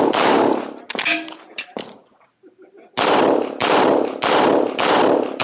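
Handgun shots: one shot, then a pause of about two and a half seconds with a few faint clinks, then a steady string of four shots about two-thirds of a second apart.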